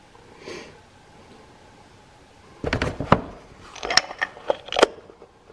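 Irregular metal clinks and knocks of a socket wrench being fitted onto the bolts of an ATV engine's oil filter cover, starting about two and a half seconds in.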